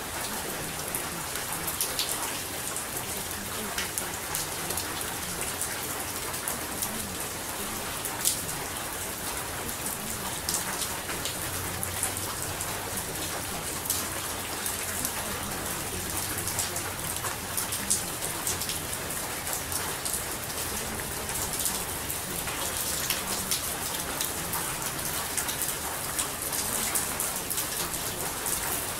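Steady rain with scattered close drop impacts ticking through it.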